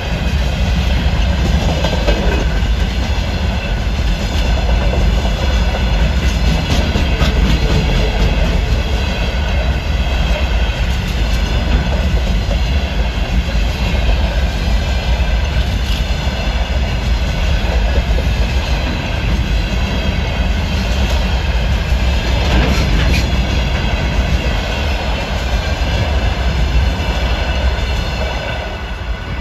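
Freight train of container wagons rolling past, a steady heavy rumble with wheels clicking over the rail joints.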